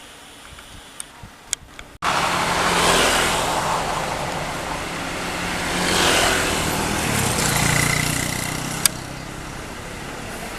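Road traffic passing close by: engine and tyre noise that starts abruptly about two seconds in and swells and fades as vehicles go by. Before it, a quieter background with a few clicks.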